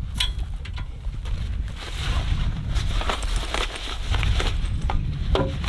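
Rustling and clicking as a coiled air hose and its fabric bag are handled, over a steady low rumble.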